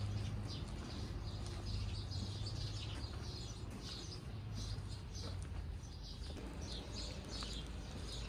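Small birds chirping, many short high calls repeating throughout. Under them is a low steady hum that fades out about halfway through.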